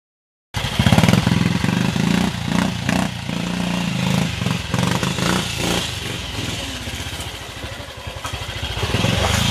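Vintage trials motorcycle engine running, the throttle opened and closed in short uneven bursts as the bike climbs a steep section. It cuts in about half a second in, eases off around two thirds of the way through, and picks up again near the end.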